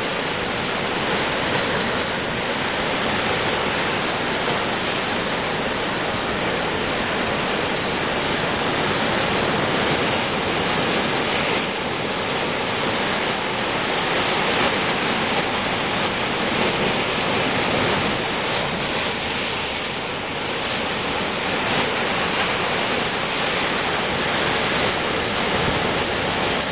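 Heavy ocean surf breaking over a rocky shore: a continuous loud roar of churning whitewater.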